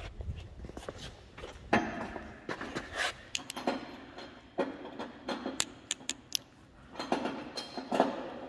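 Irregular metallic clinks and knocks of hand tools at work on a car in a repair workshop: a dozen or so sharp taps, some with a short ring.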